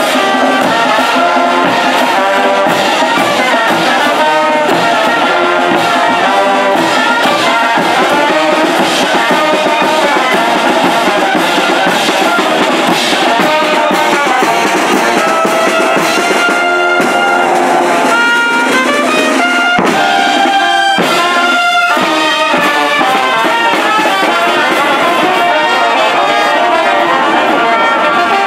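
Mexican brass band of trumpets, trombones and tubas with bass drum, snare drum and cymbals playing loudly while marching, accompanying chinelo dancers.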